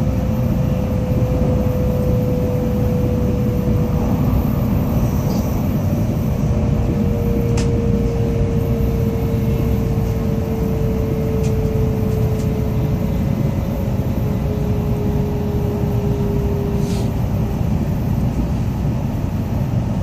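Tokaido Shinkansen Kodama train running at speed, heard from inside the passenger cabin: a steady low rumble, with a whine slowly falling in pitch across most of the stretch.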